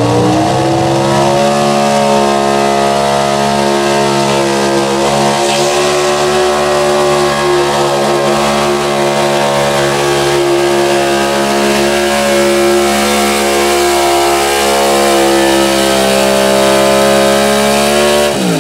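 Stock 4x4 pickup truck's engine at full throttle pulling a weighted sled down the track: it revs up in the first second or so, holds a steady high-rpm pitch through the pull, and drops off sharply right at the end as the throttle is released.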